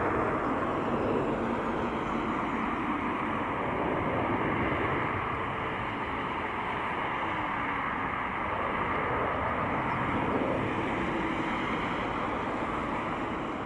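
Boeing 787-9 Dreamliner's twin turbofan engines at takeoff thrust, a steady jet roar as the airliner departs.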